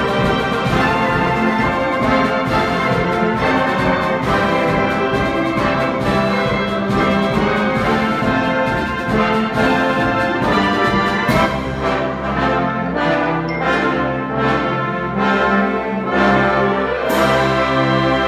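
A concert band playing live, with brass (trombones, trumpets, tuba) prominent over clarinets and saxophones. About halfway through the music turns to short, punchy accented chords over held low bass notes.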